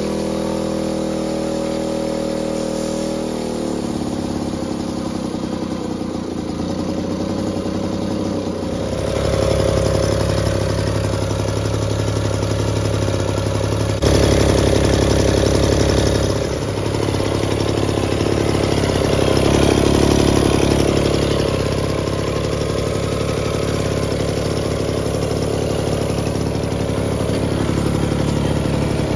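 1956 Rhonson moped's small two-stroke engine running after a pedal start, its pitch shifting as it settles. It gets louder about nine seconds in, with a brief rev near the middle and another rise a few seconds later.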